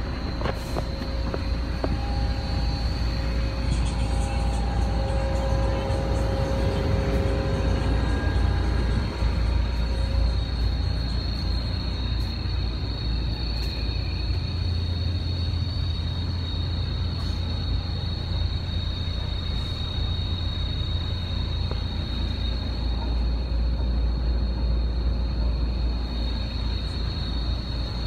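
Steady low rumble of a sleeper bus heard inside its passenger cabin, with a thin high-pitched whine over it.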